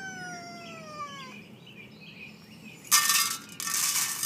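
An agitated domestic cat's long, drawn-out meow, falling steadily in pitch and ending about a second in. About three seconds in come two loud, sudden bursts of noise, back to back.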